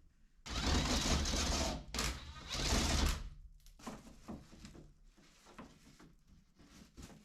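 A handheld power tool runs in two bursts of about a second each, then comes a string of light knocks and clicks.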